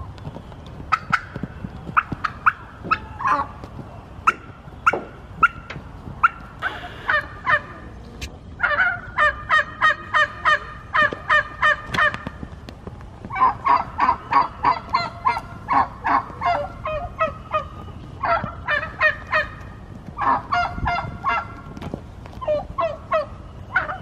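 Turkeys yelping in long runs of evenly spaced notes, about three a second, after a few sharp clicks and single calls in the first seconds.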